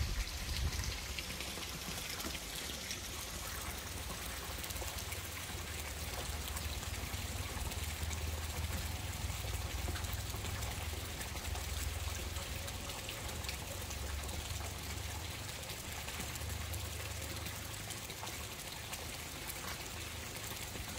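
Running water trickling and pouring steadily, with a low rumble underneath.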